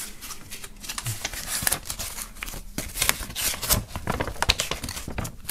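Paper rustling and crinkling in short irregular bursts as a folded poster is handled and unfolded.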